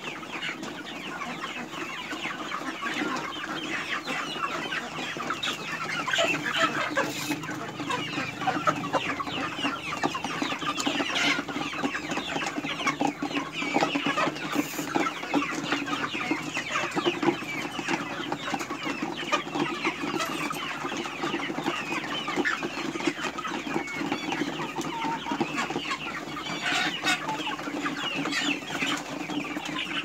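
A flock of 53-day-old young chickens clucking and cheeping all at once, many short overlapping calls running without a break.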